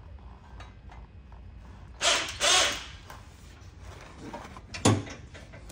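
Metal-on-metal creaks and clunks from a modified engine hoist and the transfer case hanging from it as the load is swung into position: two loud grating noises about two seconds in, then a sharp knock near the end.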